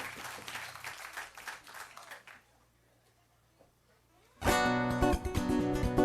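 Acoustic guitar music: a faint passage of quick strokes dies away about two and a half seconds in, leaving near silence, then guitars come in loudly about four and a half seconds in, strumming and plucking a rhythmic figure.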